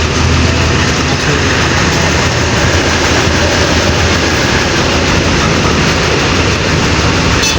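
Road traffic passing close by: a loud, steady rumble of engines and tyre noise.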